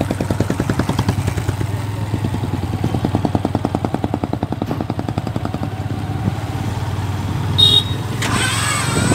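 A small engine running with a fast, even putter.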